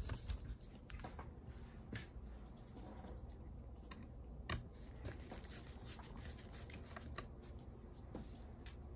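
Faint, scattered small clicks and light scraping from a precision screwdriver working the small screws that hold a laptop battery in place.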